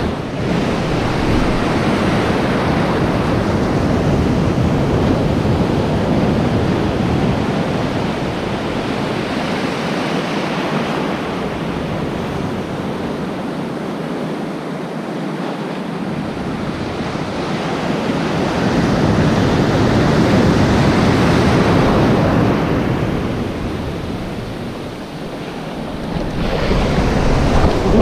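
Surf washing and foaming over a shallow reef flat around a wader's legs, in a steady rush that swells and eases as waves pass. It is loudest a little past the middle, dips shortly before the end, then rises again.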